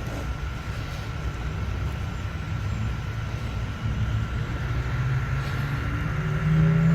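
Steady low engine rumble, with a faint steady high whine, growing louder near the end.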